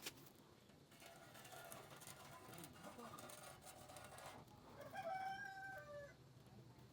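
A faint, distant bird call about five seconds in, held for about a second and then dropping in pitch, over near-silent background.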